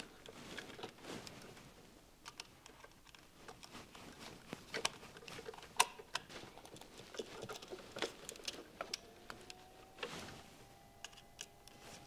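Faint, scattered small clicks and ticks of a screwdriver working the screw terminals of a Kasa HS210 smart switch, as traveler wires are tightened under its brass screws.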